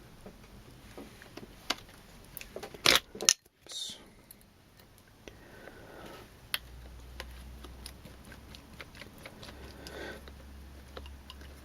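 Small clicks and taps of small metal RC drivetrain parts and a hex wrench being handled on a bench, with a louder cluster of sharp clicks about three seconds in.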